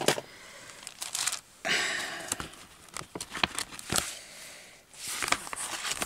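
A clear plastic bag crinkling as it is picked up and handled, with small paper rustles and clicks, in two stretches: about two seconds in and again near the end.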